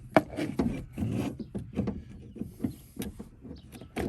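Hands working car parts into place: an irregular run of sharp clicks and knocks with scraping and rubbing between them, as a fuel pump assembly is handled and fitted.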